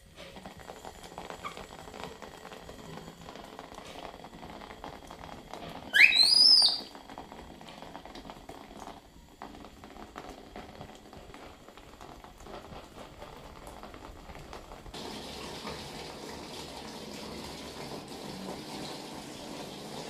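Water running and splashing, with a brief loud high squeal rising sharply in pitch about six seconds in. About three-quarters of the way through, the water becomes a louder, steady rush.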